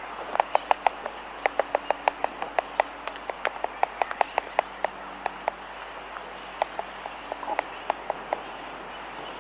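Laysan albatrosses clacking their bills in the colony: sharp wooden clicks coming in quick runs of several a second, with brief pauses, thinning out in the second half.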